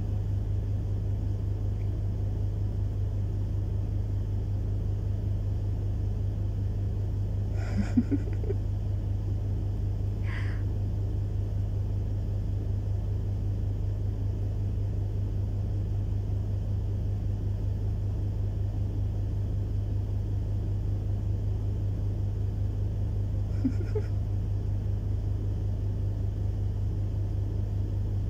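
Steady low machine hum with no change in level, broken by a few brief faint pitched sounds about eight seconds in, again two seconds later, and near the end.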